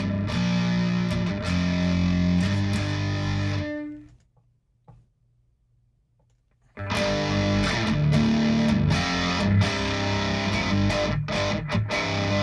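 Distorted electric guitar riffing through a This Heavy Earth Black Mass preamp pedal, its internal clean-blend trim pot set at noon for a 50-50 blend of clean and distorted signal. The playing stops about four seconds in, goes nearly silent for a few seconds, then starts again.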